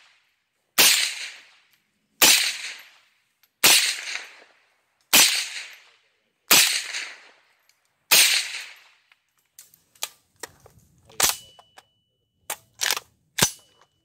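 IWI Galil ACE short-barrel rifle firing through a Rugged Surge 7.62 suppressor: six single shots about a second and a half apart, each trailing off in echo. In the last few seconds come quieter, shorter clicks and knocks.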